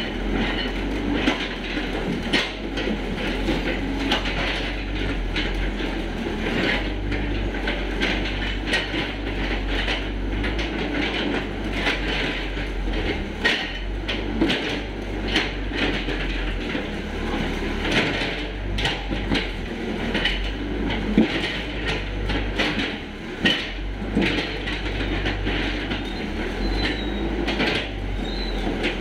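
Small crawler excavator digging in wet clay: its diesel engine running steadily, with frequent metallic clanks and knocks as the bucket works.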